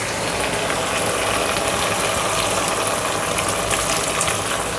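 Hot pan of tomato and broad bean curry sizzling with a steady hiss as more water is poured in.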